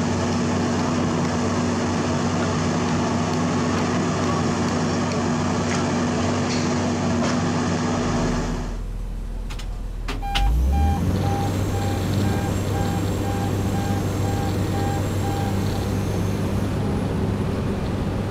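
Komatsu PC200 excavator's diesel engine running steadily. About nine seconds in, the sound breaks and the diesel engine of an XCMG rotary bored-pile drilling rig comes in running, with a row of short beeps at about two a second for some five seconds.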